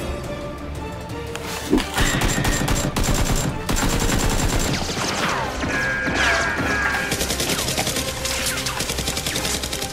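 Bursts of rapid gunfire, shots coming thick and fast from about two seconds in, with several falling whistling tones in the middle, over background music.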